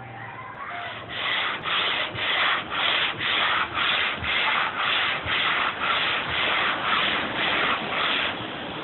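Sandpaper on a hand-held sanding block rubbed back and forth across a wooden butcher-block table top, about two strokes a second, scrubbing off old stain and finish. The strokes start about a second in and stop shortly before the end.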